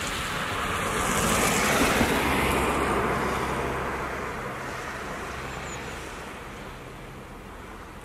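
A gust of strong wind rushing through the trees and buffeting the microphone. It swells over the first couple of seconds, then slowly dies away.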